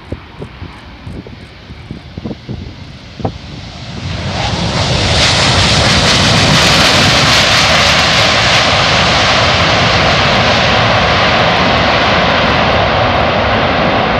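Jet engines of a large airliner flying past at an air display. The roar swells about four seconds in and then holds loud and steady, a wide rushing noise with a low rumble under it. Before it swells there are a few faint low knocks.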